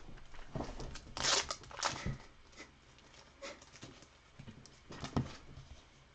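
Soft rustling and scattered light clicks of plastic being handled: a penny sleeve being worked over a thick relic trading card, loudest about one to two seconds in.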